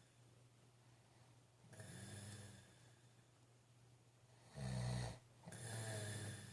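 A man snoring in his sleep: three snores. A faint one comes about two seconds in; near the end a short, loud one is followed straight away by a longer one.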